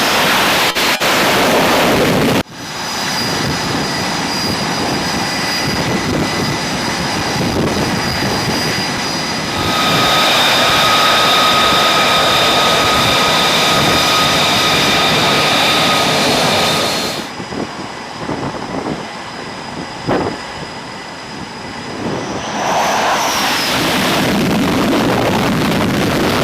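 Jet aircraft engines running loud, a dense roar with a steady high whine over it. The sound changes abruptly several times: a sharp cut about two and a half seconds in, a stronger whine from about ten seconds, and a quieter stretch after about seventeen seconds.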